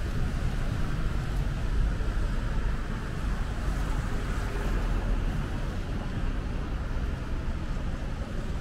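Steady urban road-traffic noise, with wind rumbling unevenly on the microphone.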